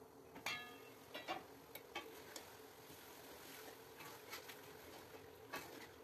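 Aluminium karahi lid clinking with a short ring as it is lifted off, then a spoon scraping and knocking against the pot as browning chicken is stirred, over a faint sizzle.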